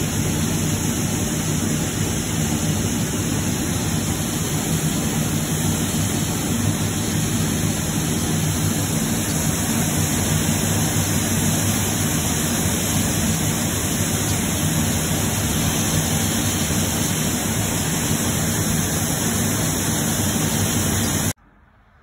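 Grain augers running steadily, with shelled corn pouring: a loud, even mechanical noise that cuts off suddenly near the end.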